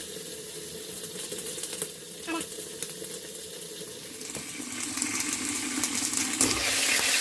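Chicken wings frying in hot oil in a pan: a steady sizzle full of small crackling pops, growing louder a little past halfway.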